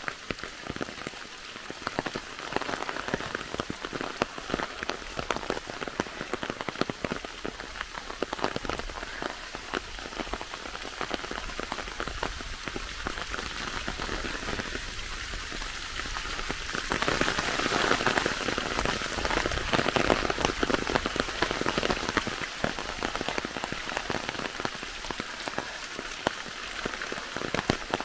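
Rain falling through a forest: a dense, steady patter of drops, growing heavier for a few seconds a little past the middle.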